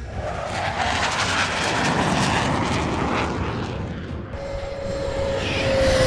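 Jet aircraft engine noise, a steady rush with a whine that slides down in pitch near the end, as of a jet passing by.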